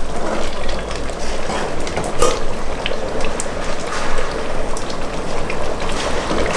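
A pot of thick Nigerian pepper stew sizzling and bubbling as it fries in its own oil, with many small crackles; the water has cooked off and the oil is separating out.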